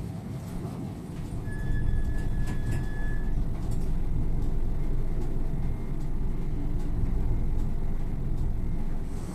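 Hino Poncho small bus driving along, heard from inside the passenger cabin: a steady low engine and road rumble that grows louder a couple of seconds in. A high, steady beep sounds for about two seconds near the start.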